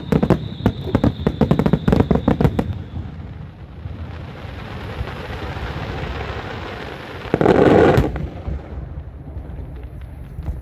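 A rapid string of sharp bangs and crackles for about three seconds, then a rising hiss and one loud, dense burst about seven and a half seconds in, with a few faint cracks after.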